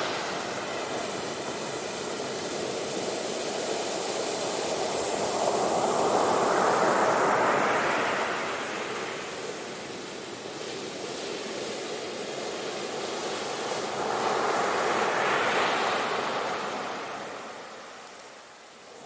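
Ocean surf: waves breaking near the shore, a steady wash that swells twice, about six seconds in and again about fifteen seconds in, then eases off near the end.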